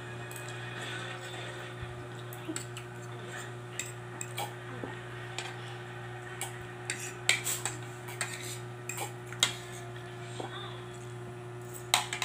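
Metal fork clinking and scraping against a plate while eating, in irregular clicks, the loudest about 7 s in, about 9.5 s in and near the end.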